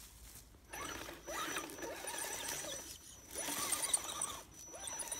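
Axial SCX10 Trail Honcho RC crawler's electric motor and drivetrain gears whining as it crawls up a log ramp. The sound comes in three throttle bursts with short pauses, its pitch wavering with the load, over a thin, steady high-pitched tone.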